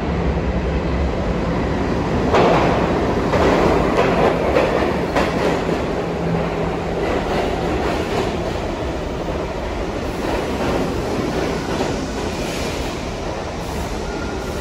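New York City subway train running in the station, its wheels clacking over rail joints. The clacking starts about two seconds in, when it is loudest, then settles into a steadier rumble that slowly eases off.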